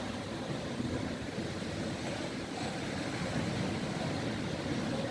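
Steady wind rumbling on the microphone over the wash of choppy sea, with waves breaking against a stone seawall.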